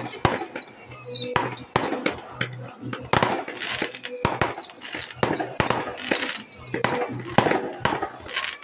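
Fireworks going off in quick succession: many sharp bangs and pops, mixed with a run of shrill whistles that fall slightly in pitch.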